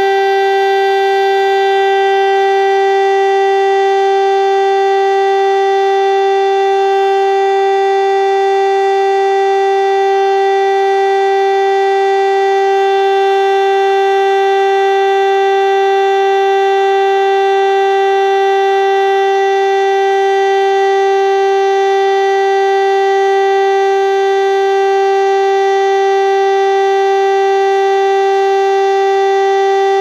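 DS977 motor-driven civil-defence siren sounding one steady, unbroken tone at constant pitch, rich in overtones: the continuous test tone of the Czech monthly siren test.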